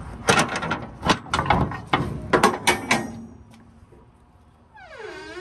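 Metal clanking and rattling from a semi-trailer's rear doors and latch hardware being handled, many sharp knocks for about three seconds. A squeal that dips and then rises in pitch starts near the end.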